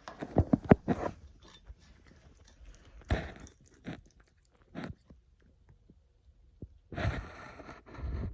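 Cats chewing and crunching their food in bursts: a quick flurry of crunches at the start, a few single bites in the middle, and a longer run of chewing near the end.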